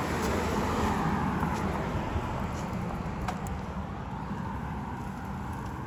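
Steady rushing noise of a mountain bike being ridden along a sidewalk beside a road: wind rumble on the microphone and tyre noise. A passing car swells and falls in pitch over the first two seconds, and there is a light click about three seconds in.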